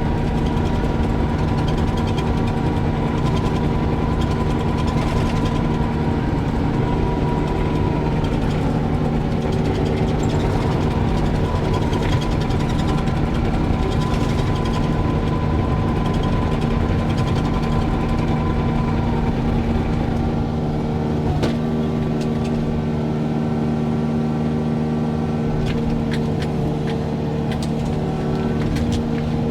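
Excavator's diesel engine running steadily under load as the machine moves, with a higher whine over it and scattered sharp knocks and clicks; the engine note changes about two-thirds of the way through.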